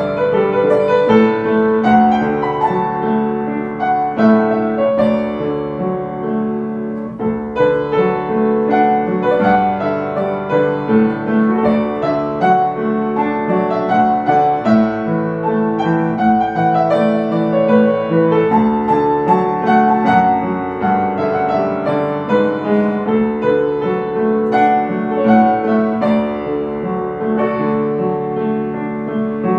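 Solo Yamaha upright piano playing a Taiwanese folk melody in D, a right-hand tune over a left-hand chordal accompaniment.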